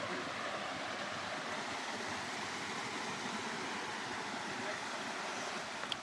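Waterfall rushing steadily, a constant spread of water noise. A short click sounds just before the end.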